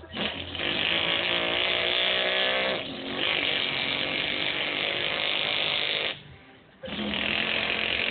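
A man imitating a truck engine with his voice, a raspy revving noise held in long stretches. It breaks off briefly about three seconds in and again for under a second about six seconds in.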